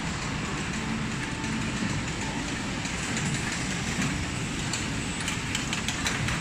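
Richpeace bulky fabric spreading machine running along its table, laying fabric: a steady mechanical rumble with light clicks and rattles, which come more often near the end.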